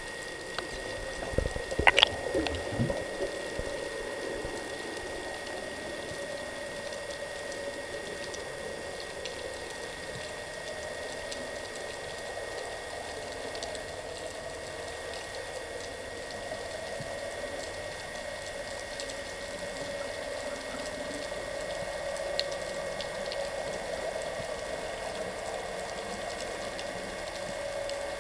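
Underwater sea ambience heard through a diving camera's housing: a steady hiss and crackle with a faint constant high tone. A short cluster of sharp knocks and clicks about two seconds in.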